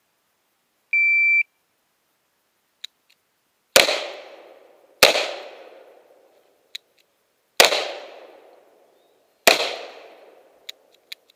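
A shot timer beeps once, a steady high tone about half a second long, then a revolver fires four shots a second or two apart, each trailing off in a short echo. A few faint clicks fall between the shots.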